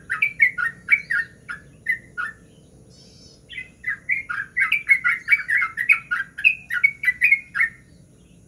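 Yellow-vented bulbul singing its rapid rolling chatter of quick notes. A short run comes first, then after about a second's pause a longer, faster run that stops about a second before the end.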